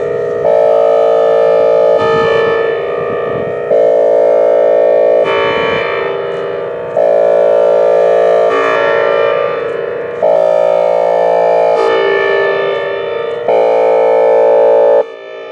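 Whelen Vortex R4 electronic warning siren sounding its hi-lo tone: two steady pitches alternating, each held about a second and a half, one louder than the other. Near the end it drops off briefly.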